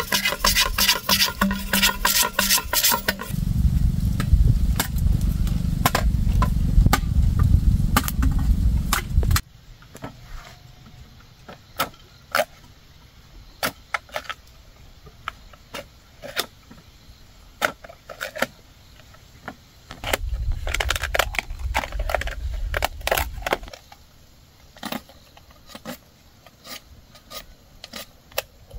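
Machete blade knocking and cracking against bamboo as a pole is cut and split into strips: a quick run of sharp cracks and taps at first, then scattered single knocks. A heavy low rumble sits under the cracks for several seconds early on and returns for a few seconds past the middle.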